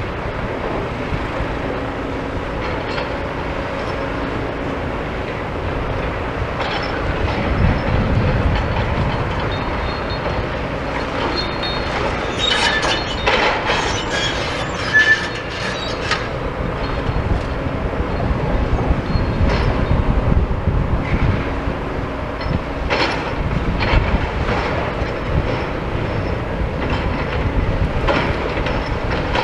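Demolition excavator working on a rebar-filled concrete slab: a steady diesel rumble with scattered clanks, cracks and metal squeals as reinforced concrete is broken up. A dense run of sharp clanks and squeals comes about twelve to sixteen seconds in.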